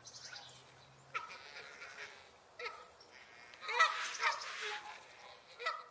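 Domestic geese honking, a string of short harsh calls a second or so apart, with a louder cluster of honks a little before the middle.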